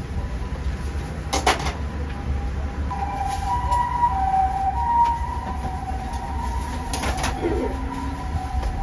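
Two sharp knocks about six seconds apart, over a steady low hum. A wavering high tone runs between them.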